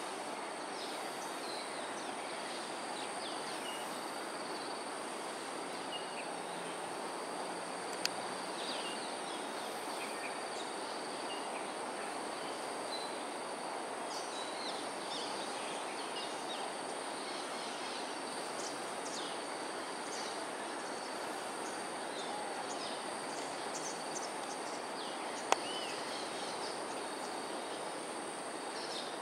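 Outdoor ambience: a steady background hiss with a continuous high insect drone and scattered short, high chirps of small birds. Two sharp clicks, one about eight seconds in and one near the end.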